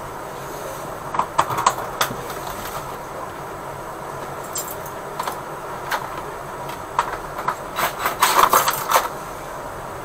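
Irregular sharp clicks and knocks over a steady background hum, with a quick run of them about eight to nine seconds in.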